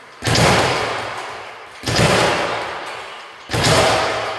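Speed bag rattling rapidly against its rebound platform under fast punches, a dense machine-gun-like patter. It comes in three surges, each starting sharply and fading over about a second and a half.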